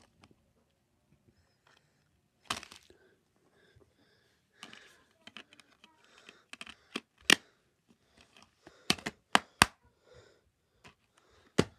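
Plastic DVD cases being handled: irregular sharp clicks and snaps with light crinkling rustles, including three clicks in quick succession about nine seconds in.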